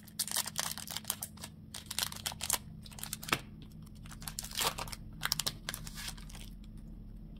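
Foil wrapper of a Pokémon TCG booster pack being torn and pulled open by hand, crinkling in a run of short sharp crackles that thin out after about six seconds.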